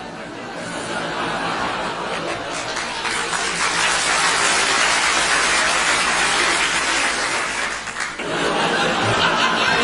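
Crowd laughing and clapping, swelling steadily to a loud peak, dropping sharply about eight seconds in, then rising again.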